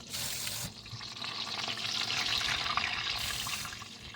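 Green tomato slices frying in hot oil in a pan, a steady sizzle that grows louder towards the middle and eases off near the end.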